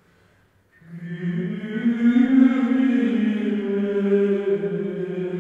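Chant-like music: a sustained low, droning chant with a slight waver, swelling in about a second in.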